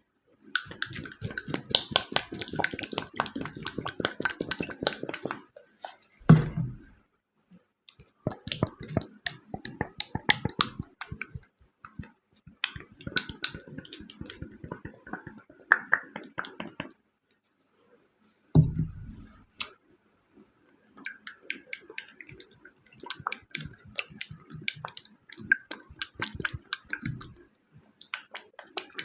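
Homemade gym chalk crunching and crumbling under the fingers, in several spells of dense crackling separated by short pauses. Two duller, heavier thuds stand out.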